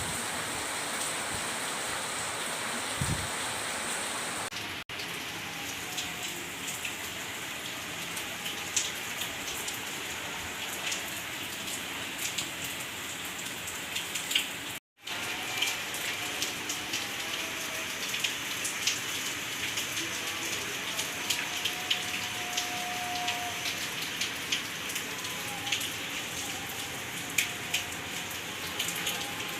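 Steady rain falling, with individual drops ticking sharply on a nearby surface over the constant hiss of the downpour. The sound cuts out completely for a moment about halfway through.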